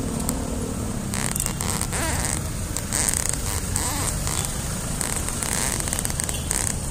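Wind buffeting the microphone and the rolling noise of a bicycle's knobby tyres on pavement while riding: a steady low rumble with rustling hiss.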